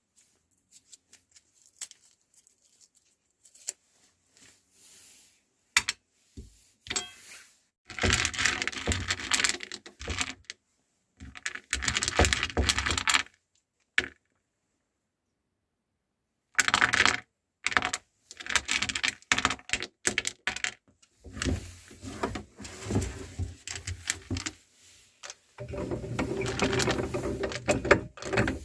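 Chocolate candies being crushed in a meat grinder. Irregular bursts of crackling and crunching clicks with short pauses between them, busiest near the end.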